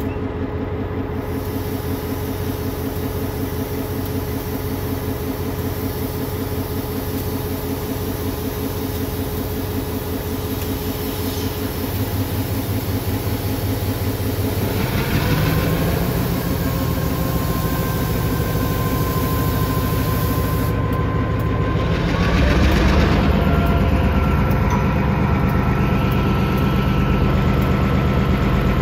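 Diesel-electric locomotive running at a steady low idle, its engine note stepping up louder and heavier about halfway through and again about three-quarters through, each step with a brief hiss.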